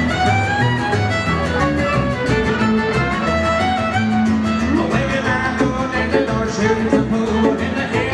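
Live country band playing: a fiddle carries the melody over strummed guitars, bass and a steady beat.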